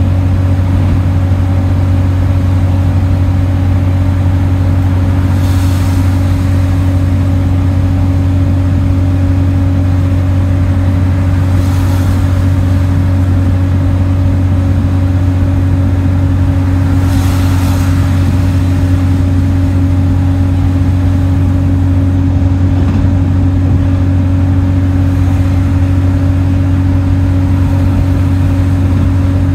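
Interior of a single-deck bus cruising at steady speed: a constant low drone from the drivetrain and road, heard through the cabin. Three brief whooshes about 6, 12 and 17 seconds in are passing traffic.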